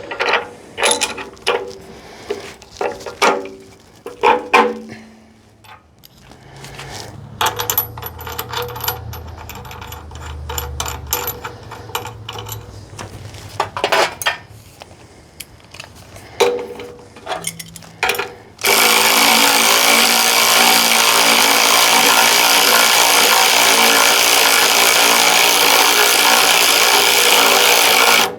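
Hand tools clicking and knocking on the mounting bolts, with ratchet-like clicks, as an electric motor is bolted to its cradle. About two-thirds of the way in, a power tool starts abruptly. It runs loud and steady for about ten seconds and cuts off suddenly.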